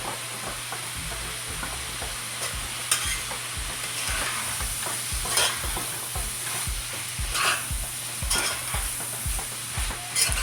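A spoon stirring and scraping through a sizzling pan of sausage and seasoned vegetables, with repeated knocks against the pan over a steady frying hiss.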